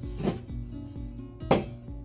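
Background acoustic guitar music, with a light knock near the start and a sharp, loud knock about one and a half seconds in.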